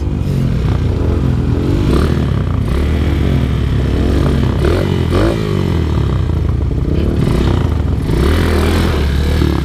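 Dirt bike engine revving up and down in repeated rises and falls, as the bike is worked over rough trail.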